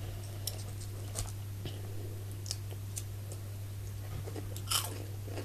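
Faint crunching and clicking mouth sounds of someone chewing a small chocolate-covered wafer ball with a cream filling, a few soft clicks spread out, with a brief louder breathy noise near the end, over a steady low hum.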